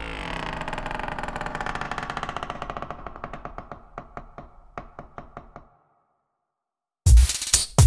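Breakdown in an electronic dance track: a sustained synth chord with a fast clicking beat that thins out and fades away a little over halfway through. After about a second of silence, heavy electronic drums and bass come back in near the end.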